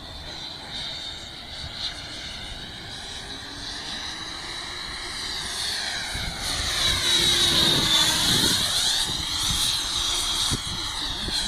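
90 mm electric ducted fan of a Zagi flying-wing RC model, a high jet-like whine. It grows louder as the model approaches and passes close about eight seconds in, its pitch dropping as it goes by.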